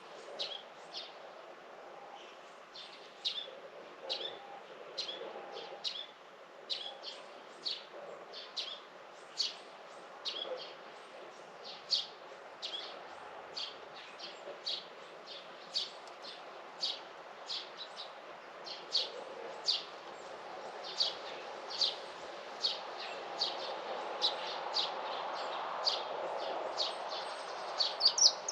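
Small birds chirping: short, high chirps repeated irregularly about once or twice a second, over a steady background hum that grows louder near the end.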